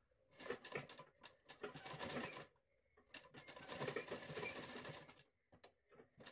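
Sewing machine stitching a seam in two short runs of about two seconds each, with a brief pause between them.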